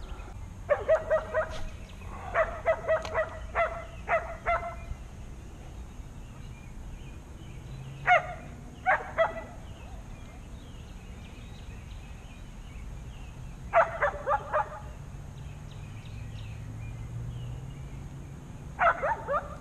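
Dog barking in short bursts of several quick barks, with pauses of a few seconds between the bursts.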